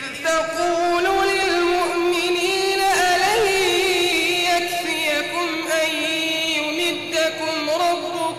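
A man's voice reciting the Quran in melodic tajweed style, drawing out long held notes with wavering ornaments, with a few short breaks near the end.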